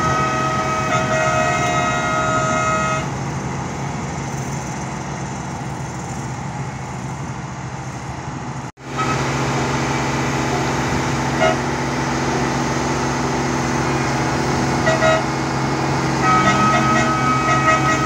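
Diesel engine of a track-laying machine running steadily. A sustained horn-like warning tone sounds over it for the first few seconds and again near the end. The sound cuts out for an instant about nine seconds in.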